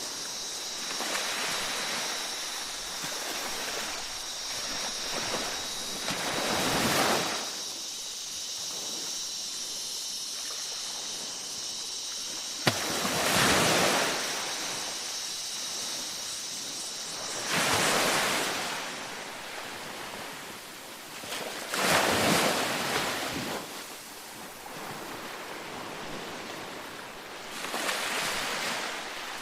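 Ocean waves breaking on a beach, a steady wash of surf with a louder surge every four or five seconds. A steady high-pitched tone sounds behind the surf and stops a little over halfway through, and there is one sharp click near the middle.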